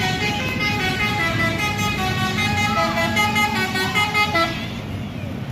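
Bus basuri telolet horn playing a melody of several steady tones at once, stepping from note to note over the low rumble of bus engines. The tune stops about four and a half seconds in.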